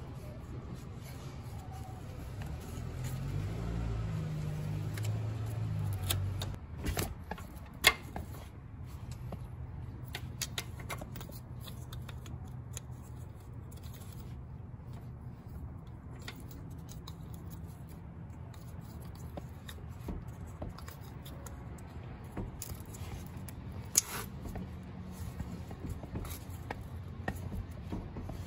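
Scattered small clicks and taps of hand tools and metal parts being handled, with two sharper clicks, over a low steady hum.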